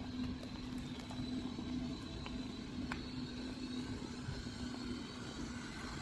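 Neta L range-extender hybrid creeping forward at low speed on battery power, its engine not running: a low, steady hum that fades out about five seconds in.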